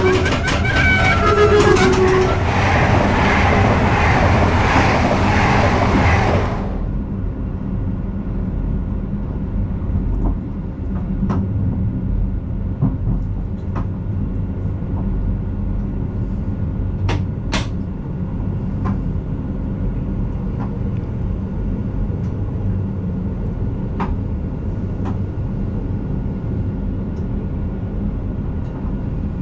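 Dutch passenger train sounding short horn notes as it passes close with a loud rush, which cuts off about six seconds in. Then comes a steady low rumble of a train with a few sharp clicks.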